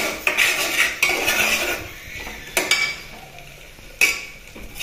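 A steel spoon stirring and scraping onion-tomato masala in an aluminium pressure cooker, with several sharp clinks of the spoon against the pot, one at the start and one about four seconds in.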